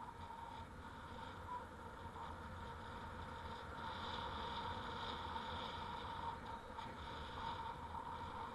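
Steady rolling noise of a bicycle moving along an asphalt street, with a faint steady whine running through it; it grows a little louder about halfway.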